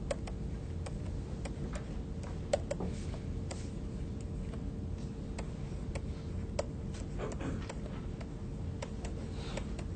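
Irregular light clicks of a stylus tapping and writing on a tablet screen, over a steady hum.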